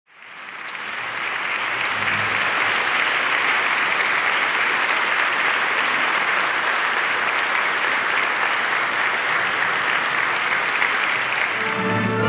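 Audience applauding steadily, fading in over the first second. At the very end an orchestra starts to play.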